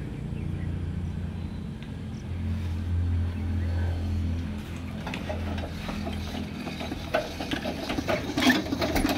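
Air-cooled Eicher diesel tractor engine being started: a low steady hum, then a few seconds before the end a quickening run of mechanical clicks and knocks as the engine is cranked and begins to fire.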